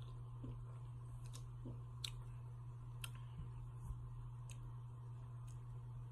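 A person swallowing a couple of sips from a drink can in the first two seconds, then a few scattered faint clicks over a steady low hum.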